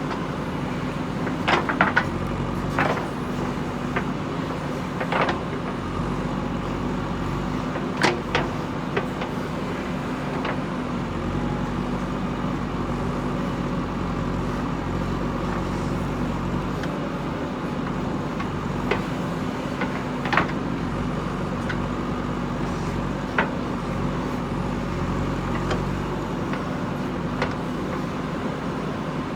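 JCB 3DX backhoe loader's diesel engine running steadily while it digs, with scattered sharp knocks and clanks from the working machine.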